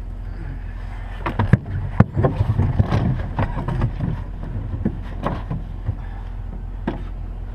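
Wind buffeting the microphone as a steady low rumble, with scattered sharp clicks and knocks throughout.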